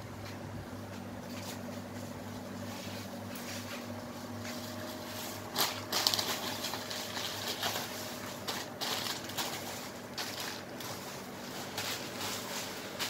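A steady low hum under the crinkle and rustle of plastic snack packets being handled on a shop counter, with a louder cluster of crinkling about six seconds in.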